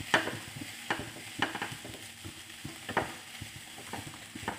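A spatula stirring chopped vegetables and paneer in a non-stick kadhai. It scrapes sharply across the pan five or six times at uneven intervals, with small knocks between strokes, over a light frying sizzle.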